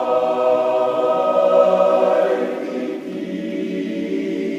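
Chorus singing long held chords, the sound swelling about halfway through and easing a little toward the end.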